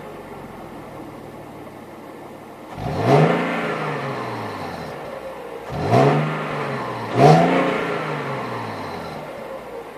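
Stock 3.0-litre V6 engine idling, then revved with three quick throttle blips: about three seconds in, at about six seconds and again just over a second later. Each time the revs rise sharply and then fall slowly back to idle.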